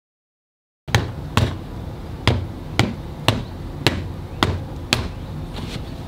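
A run of sharp knocks, about two a second, starting about a second in after dead silence.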